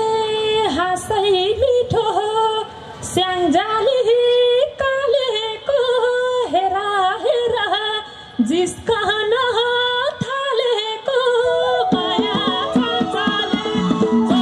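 A woman sings a Nepali lok dohori melody through a stage PA, in long, bending, ornamented held notes with almost no accompaniment. Near the end the band comes in with a steady rhythm under her voice.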